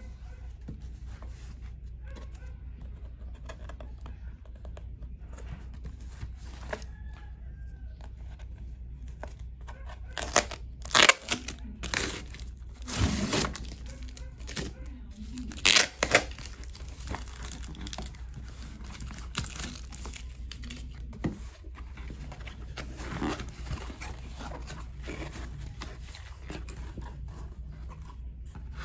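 Packing tape being ripped off a cardboard box, with a run of sharp, loud rips about a third of the way in and softer rustling of cardboard afterwards as the flaps are opened, over a steady low hum.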